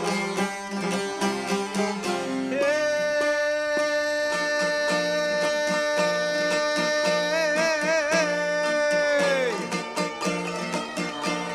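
Albanian folk ensemble playing: violin, accordion and çifteli over a quick, busy plucked rhythm. A long held melody note enters a couple of seconds in, wavers around the eighth second, then slides down and drops out, leaving the plucked rhythm.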